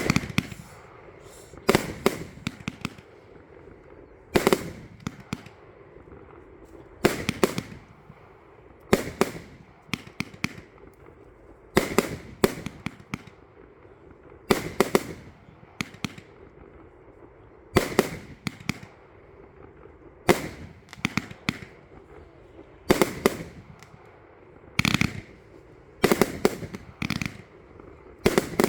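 J-Fireworks compound mine firework firing a long sequence of shots, with a sharp bang every one to two seconds, often in quick pairs, each followed by brief crackling.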